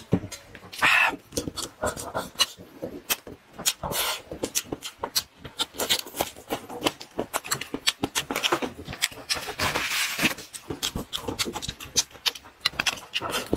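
Close-miked mukbang eating sounds: a person chewing a mouthful of food, with many irregular wet clicks and lip smacks and a longer noisy stretch about ten seconds in.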